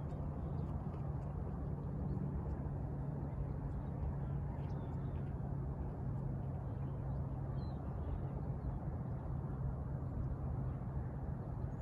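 Steady low outdoor rumble with a faint constant hum, and a few faint, short high chirps.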